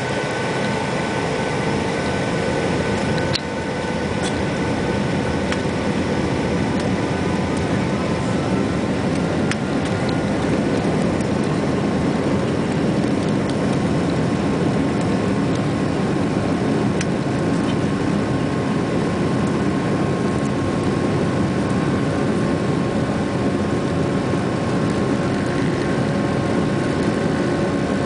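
Boeing 757-200 jet engines heard from inside the passenger cabin: a steady loud rush with thin whining tones running through it, growing slightly louder over time.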